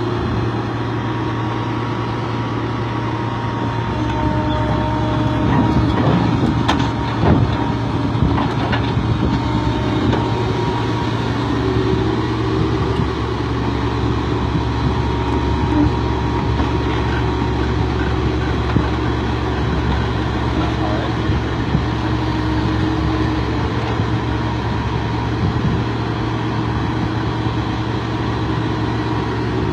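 Excavator's diesel engine running steadily under load, with a few knocks about six to eight seconds in.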